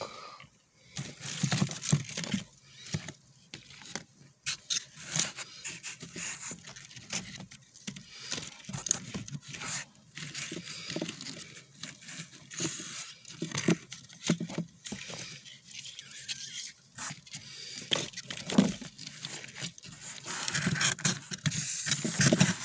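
Bark slabs and dry leaf litter handled in a plastic tub: irregular scraping, rustling and the knock of wood pieces against each other and the tub walls.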